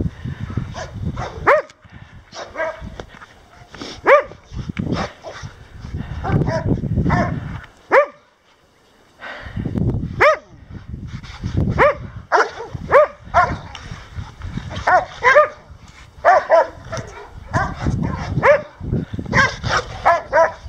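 A dog barking over and over in short, sharp barks, in irregular runs with quick volleys near the end and a brief pause about eight seconds in. A low rumble comes and goes underneath.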